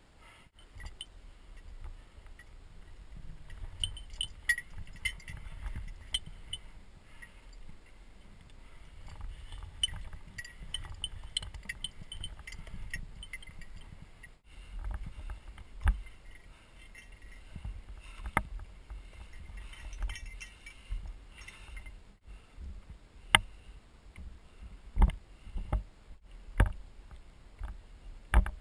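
Metal climbing gear clinking and jangling irregularly as a climber moves over granite, over a low rumble of handling and movement. Several sharp knocks in the last few seconds are the loudest sounds.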